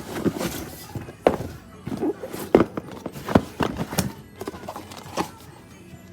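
Irregular knocks and thuds of cardboard shipping boxes being handled and opened, about half a dozen sharp ones spread unevenly over a few seconds.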